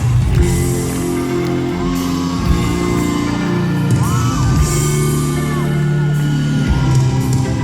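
Live band playing a song's instrumental intro in a large hall, heard from the audience, with voices in the crowd whooping over it several times.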